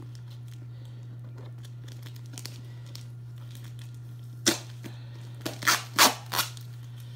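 Packing tape being ripped off a heavily taped package in short tearing pulls: one about halfway through, then a quick run of three or four near the end. A steady low hum runs underneath.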